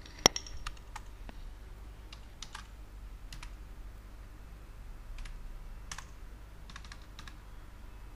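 Computer keyboard keys pressed singly and in short clusters, about a dozen clicks at irregular spacing with the loudest just after the start, as text is copied and edited in a text editor.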